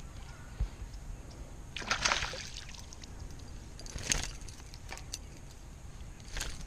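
Light splashing and trickling of water around a fishing kayak, in three short bursts about two seconds apart over a low steady rumble.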